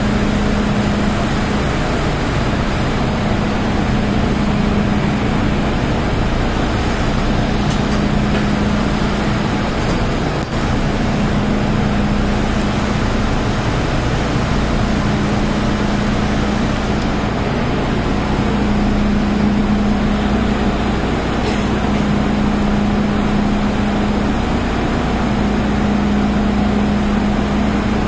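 Steady hum and rushing air of an MTR M-Train's onboard equipment while the train stands still. A low hum swells and eases every few seconds.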